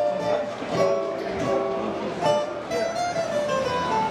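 Instrumental background music: plucked strings play a melody of short notes, with a faint bowed string underneath.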